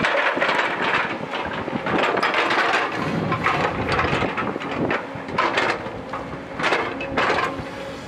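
JCB crawler excavator's diesel engine working under load while its steel bucket scrapes and drags rocks and loose soil, with irregular clattering knocks of stone throughout.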